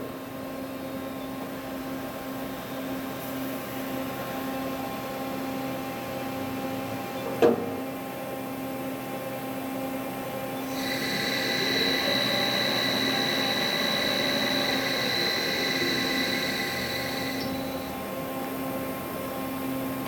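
Wada Machinery WHN-400NCR NC double-head milling machine running with a steady mechanical hum. There is one sharp knock about seven seconds in, and from about eleven seconds to near the end a higher whine joins in, then drops away.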